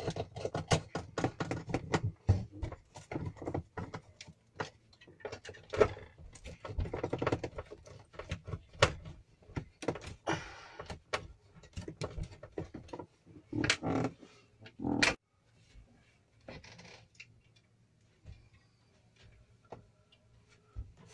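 Irregular clicks, taps and light rattling from hands working with small parts and wiring while a switch is being fitted, busiest in the first half and thinning out after about fifteen seconds.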